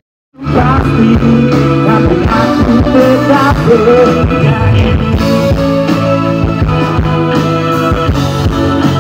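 Live rock band playing through a PA system: electric guitars, drums and keyboard with a male singer. The sound cuts in after a split-second gap at the very start.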